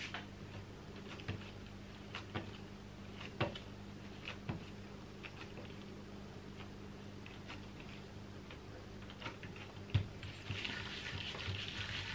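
Hands shaping a ball of bread dough on a silicone pastry mat: scattered soft taps and sticky clicks as the fingers pinch and tuck the dough, then a steady rubbing swish from about ten and a half seconds in as the ball is rolled under the palm. A low steady hum lies underneath.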